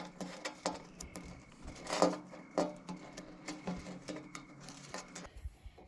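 Soft ticks and rustles of fingers handling and braiding dry pine needles on a picnic table, over a faint steady hum that cuts off about five seconds in.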